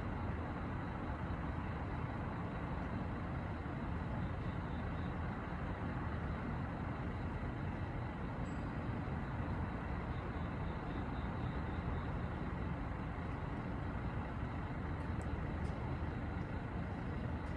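Steady low rumble of distant traffic and city hum, with faint high-pitched pulses repeating evenly over it.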